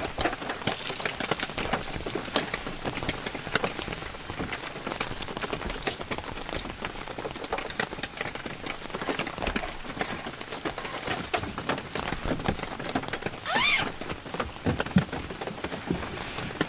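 Steady rain falling, dense with small drop ticks, heard from inside a car with its tailgate open. A short rising squeak about 13 seconds in is the loudest moment.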